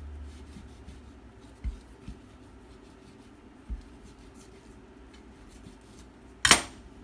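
Knife cutting into and around an avocado, with faint scraping and a few soft knocks, then one loud, sharp knock near the end.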